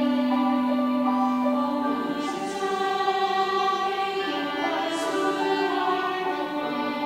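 Church choir singing a Sunday anthem, moving through long held chords.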